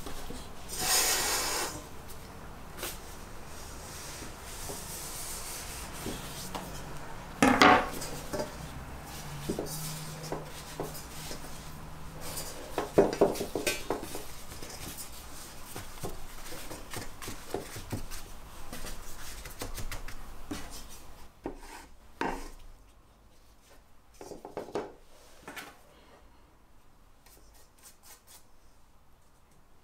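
Handling sounds in a round steel baking tray: a pastry brush and hands rubbing over the metal, and a thin phyllo sheet rustling as it is laid in and pressed down, with a few louder knocks against the tray. It grows quieter in the last third.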